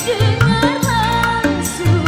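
Music: an ornamented melodic line that wavers in pitch, over hand-drum beats whose deep strokes slide upward in pitch.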